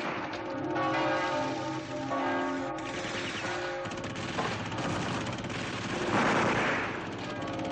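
Church bell ringing steadily over a crackle of machine-gun and rifle fire, with the loudest stretch about six seconds in.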